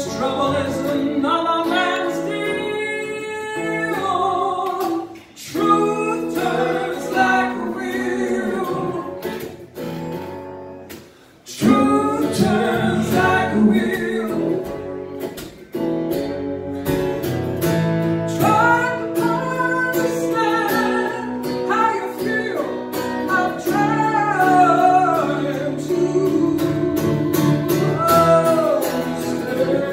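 A woman singing a song with acoustic guitar strummed alongside, performed live. The music eases off briefly about ten seconds in, then comes back fuller.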